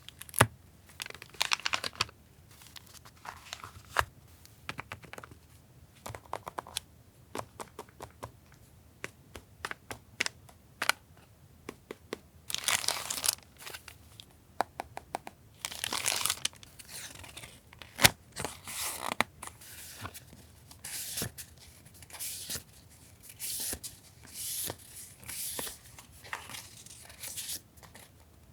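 Paper being handled and torn at a desk: crinkling and tearing, with many small taps and clicks between. Longer rustling passages come about halfway through.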